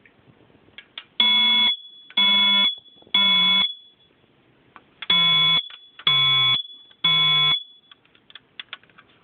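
Old First Alert smoke detector's horn sounding its test alarm: two sets of three loud beeps, the temporal-three evacuation pattern.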